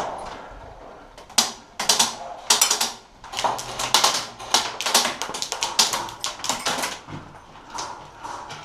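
Irregular runs of sharp clicks and taps, several in quick succession, with short gaps between the runs.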